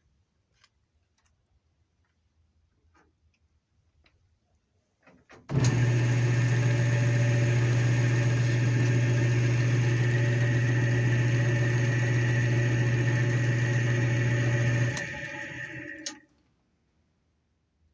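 Metal lathe switched on, its motor and spindle running steadily with a strong low hum for about nine seconds, then switched off and winding down for about a second before stopping.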